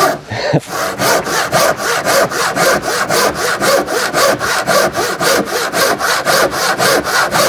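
Handsaw cutting through the horn of a timber garage door, in fast, even back-and-forth strokes of about five a second, with a brief pause just after the start.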